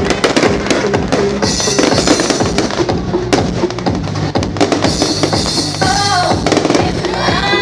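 Loud festival music with a heavy drum beat, overlaid by a rapid run of fireworks bangs and crackles.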